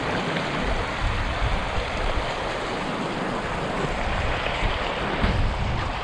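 Steady rushing of a rocky stream, with wind buffeting the microphone in an uneven low rumble.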